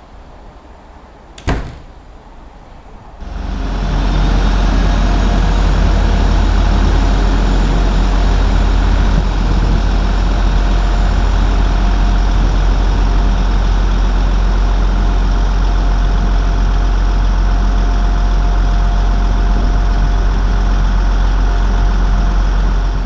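Arriva Trains Wales Class 175 diesel multiple unit running beside the platform, its diesel engines giving a loud, steady rumble with a constant hum. The rumble starts suddenly about three seconds in and holds steady. A short sharp click comes just before it.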